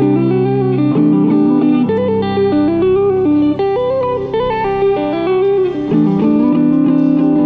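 Electric guitar playing a melody of quick single notes over sustained lower notes.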